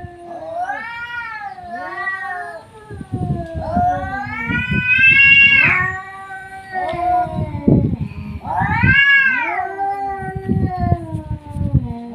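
Two cats caterwauling at each other in a fight standoff: long, drawn-out yowls that rise and fall in pitch. A lower, steadier howl runs under a higher wailing one, with rough growling pulses between.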